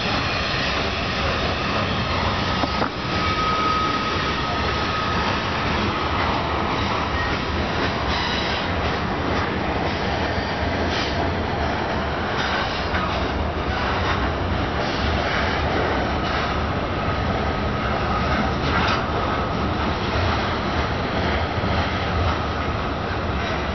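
Covered hopper cars of a grain train rolling past close by: a steady rumble of steel wheels on rail with scattered clicks from the rail joints. A faint thin wheel squeal rises twice, a few seconds in and again past the middle.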